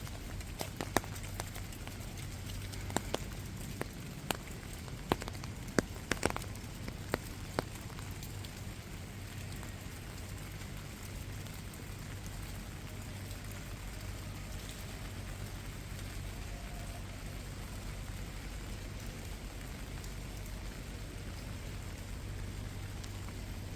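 Rain falling steadily, with a steady low hum underneath. Sharp drips and taps of drops come through the first eight seconds or so, then only the even patter of rain remains.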